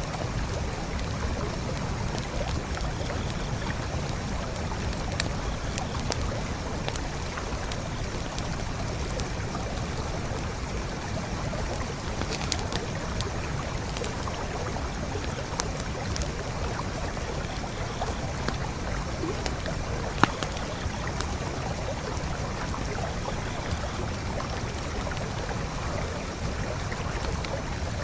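A forest creek flowing steadily, with scattered sharp pops and crackles from a campfire. The loudest single pop comes about two-thirds of the way through.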